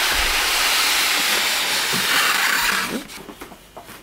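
A cardboard box sliding up off a tight-fitting styrofoam packing block: a steady, hissing scrape of cardboard rubbing on foam that stops about three seconds in.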